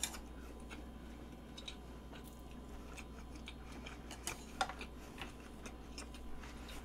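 Soft, scattered mouth clicks and smacks of someone chewing food close to a microphone, a few irregular ticks a second, over a steady low hum.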